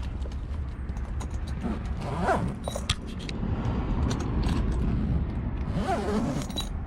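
A tool backpack being handled: a zipper drawn along a compartment while the hand tools inside clink and rattle, with scattered sharp clicks throughout. A steady low rumble runs underneath.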